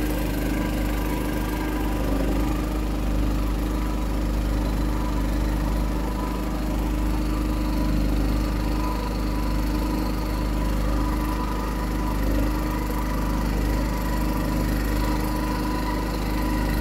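Small river boat's motor running at a steady speed while under way: an even engine hum that holds the same pitch with no revving.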